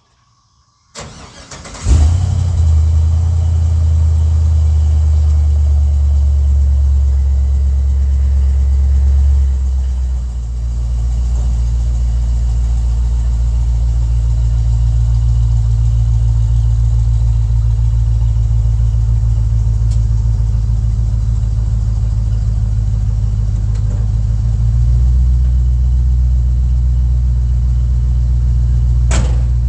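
1965 Chevy C10 pickup engine cold-started through a new pair of mufflers. It cranks briefly about a second in, then catches and settles into a steady, deep idle whose note drops slightly about ten seconds in and rises again a few seconds before the end. A sharp click comes just before the end.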